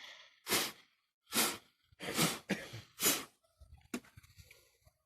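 A man coughing in a series of about five short coughs, followed by a single sharp click.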